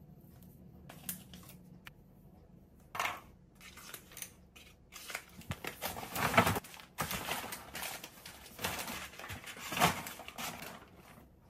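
A few light clicks of small objects being handled, then a paper shopping bag rustling and crinkling as items are pushed into it, loudest twice in the second half.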